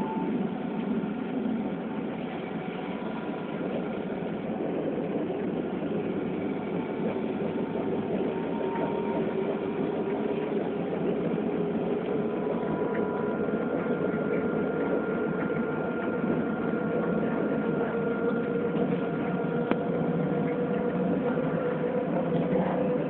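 Alstom Citadis tram heard from inside the car while running: the electric traction drive whines over a steady rumble of wheels on rail. The whine climbs right at the start and then rises slowly as the tram gathers speed.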